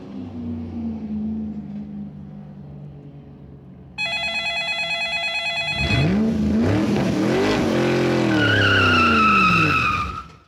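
Sound effects: a fading engine hum, then, about four seconds in, a sudden telephone ring lasting about two seconds. After it comes a car engine revving up and down in pitch, with a high tyre squeal near the end.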